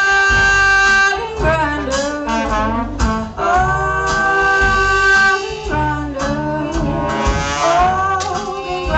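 A song playing: a singer holds long notes, some with a wavering vibrato, over a pulsing bass line.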